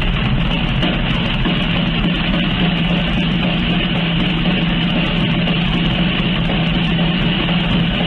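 V12 engine running at a steady speed with a loud, hard noise.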